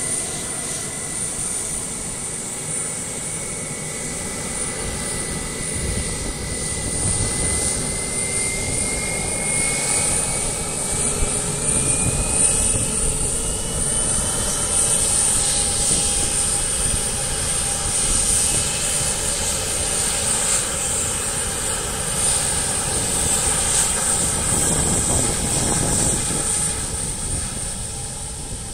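Embraer KC-390's twin turbofan engines running, a steady jet noise with a whine that rises in pitch over several seconds around the middle and grows louder, easing off near the end.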